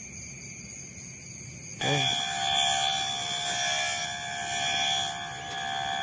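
Electronic bird-hypnosis sound played from a small speaker to hold roosting sparrows still so they can be caught by hand. It is a shrill, steady electronic tone made of several pitches and switches on suddenly about two seconds in.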